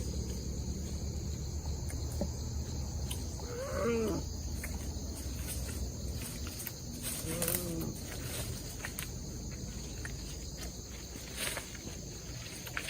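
Insects chirring steadily in rainforest ambience over a low steady rumble. A few short, faint rising-and-falling vocal sounds come about four and seven seconds in.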